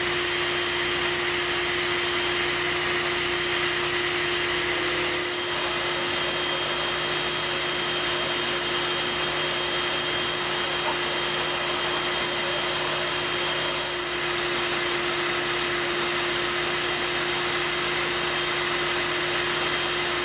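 Bee vacuum running steadily while sucking honey bees off the comb during a hive removal, a constant motor drone with a steady hum. The sound dips briefly about five seconds in and again near fourteen seconds.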